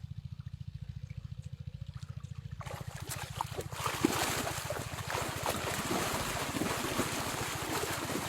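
Water splashing and rushing, starting about three seconds in and growing louder, over a steady low throb that pulses rapidly.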